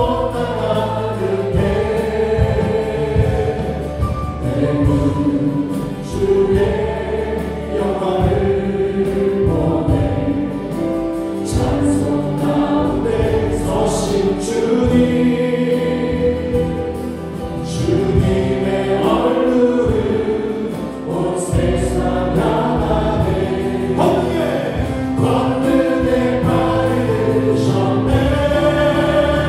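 Several voices singing a gospel praise song together in long held melody lines, accompanied by electric keyboards, a drum kit with cymbal strikes and a bass guitar.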